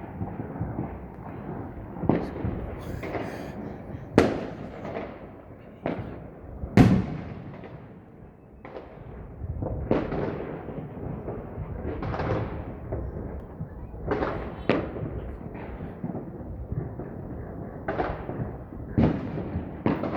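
Fireworks shells bursting one after another, a sharp bang every one to four seconds, each trailing off in a long rumbling echo, over a steady wash of more distant bangs; the loudest burst comes about seven seconds in.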